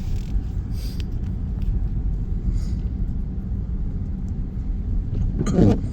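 Steady low rumble of a car's engine and tyres heard from inside the cabin as it creeps along an icy road. A brief voice sounds near the end.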